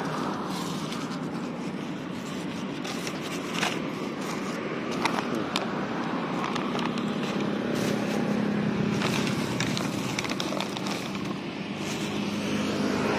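A thin plastic bag and a paper bag crinkling and rustling in the hands, with many small crackles, over the steady hum of street traffic.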